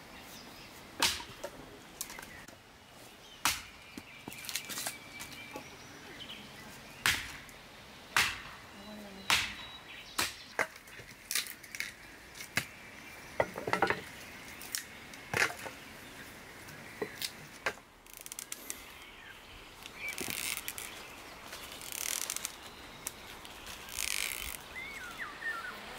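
An axe chopping thin branches against a wooden chopping stump: sharp single chops at an uneven pace, about one every second or two. The chops stop about 18 seconds in, and softer rustling noises with a few short squeaks follow.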